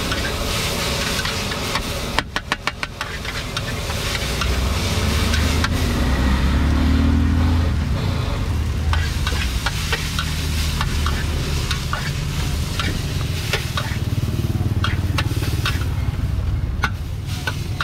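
Street-food market bustle: a steady sizzling hiss like food frying over a low engine rumble that swells about halfway through. There is a fast run of clicks about two seconds in, and scattered clinks and clatters of utensils through the second half.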